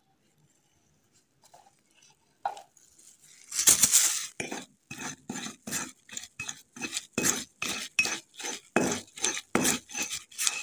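A tool scraping and stirring a wet grey paste of ammonium chloride and mercury in a metal bowl. It starts with one loud scrape a few seconds in, then goes into short rhythmic strokes of about two a second.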